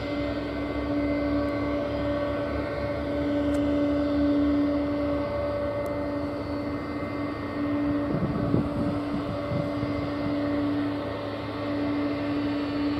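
Boeing 777 twin-engine jet airliner taxiing, its turbofan engines at low power giving a steady whine over a low hum. A brief low rumble comes about eight seconds in.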